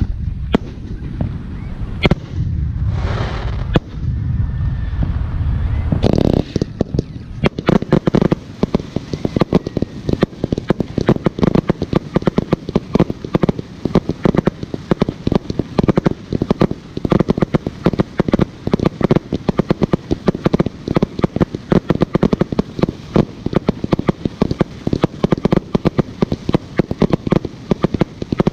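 Fireworks going off. For the first six seconds there is a low rumble with a few sharp bangs and a short hiss; after that comes a dense, unbroken rapid crackling.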